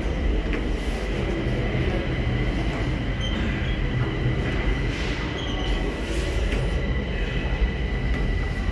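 Metro train rumbling in the station: a steady low rumble with a thin, steady high whine over it.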